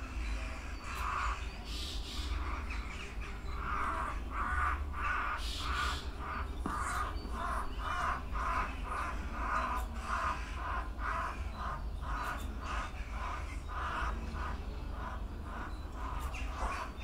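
Jackdaw calling in distress under a sparrowhawk's attack: a long, rapid run of short, harsh calls, about three a second.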